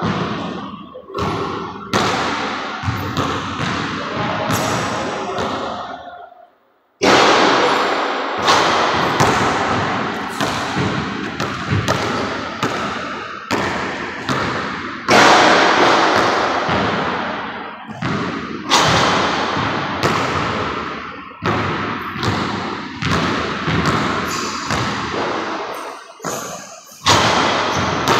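Basketball bouncing on a hardwood gym floor and hitting the backboard and rim: a string of thuds, about one or two a second, each ringing out in the big, echoing gym. The sound drops out briefly about six seconds in.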